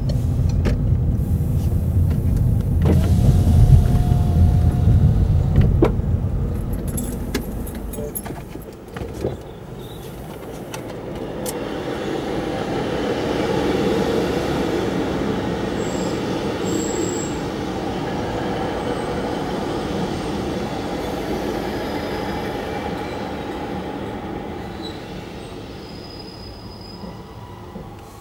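A car's engine and road noise rumbling as it draws up to a level crossing and falls away about eight seconds in. Then a GWR diesel multiple unit passes over the crossing, its sound swelling to a peak about halfway through and fading off near the end.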